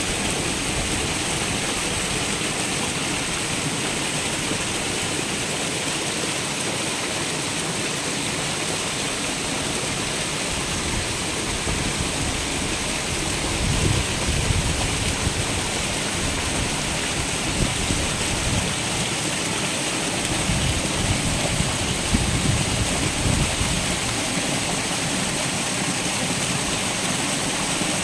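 Dense crowd of red tilapia thrashing at the water surface: a steady churning splash like heavy rain. Louder low rumbling comes in about halfway through and again later on.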